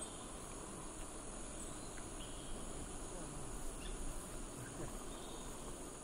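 Rainforest insect chorus: a steady, high-pitched drone from insects running without a break, with a few faint short chirps here and there.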